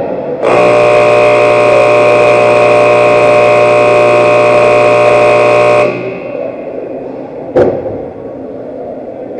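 Ice rink scoreboard horn sounding one long steady blast of about five seconds that cuts off abruptly, signalling a stoppage or the end of a period. About two seconds later there is a single sharp knock.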